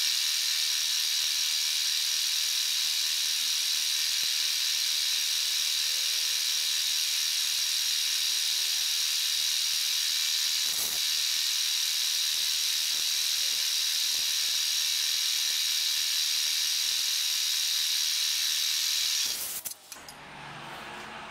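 Milling machine cutting 316 stainless steel plate with a quarter-inch end mill: a steady, high-pitched machining noise that stops abruptly near the end.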